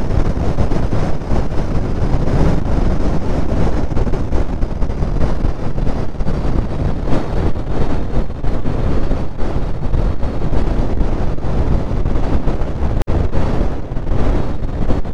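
Wind buffeting the microphone of a camera on the bow of a bass boat as it runs across the water: a loud, steady, deep rush.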